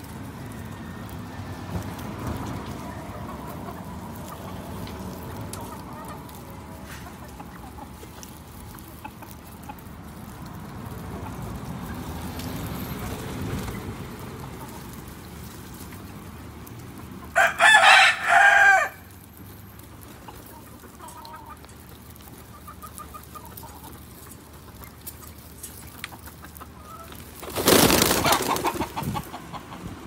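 A rooster crows once, a little past halfway, in a loud pitched call of about a second and a half broken into parts. Near the end the pigeon flock takes off in a loud burst of wing flapping.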